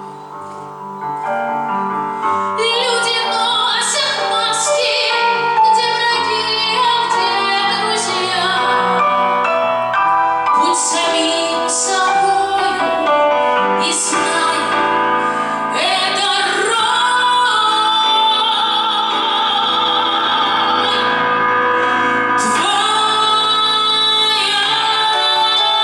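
A woman singing an aria in an operatic style, with instrumental accompaniment.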